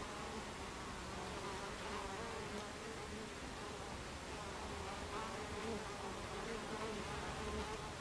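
Buckfast honey bees buzzing at the hive entrance as they fly in and out, a steady hum of wingbeats that wavers in pitch as single bees pass close.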